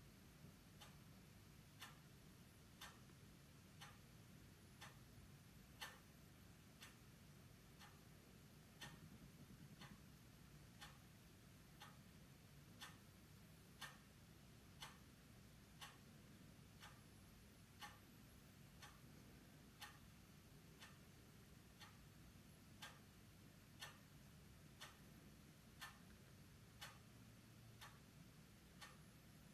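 Faint, even ticking of a clock, about one tick a second, over a low steady room hum.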